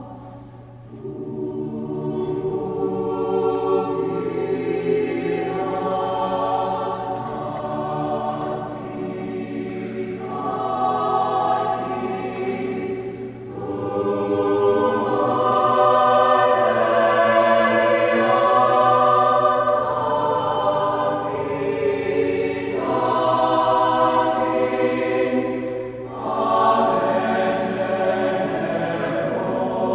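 Mixed chamber choir singing a sustained, swelling passage in several voice parts, with brief breaks between phrases about halfway through and near the end.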